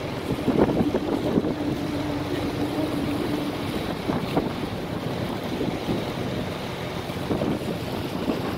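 Wind rumbling on the microphone over the steady running of a boat's engine, with a faint hum that fades out about four seconds in.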